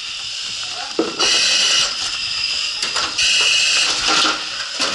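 Firefighter's breathing apparatus hissing with each inhalation, in loud bursts about two seconds apart, with a few knocks and rustles in the cluttered debris between breaths.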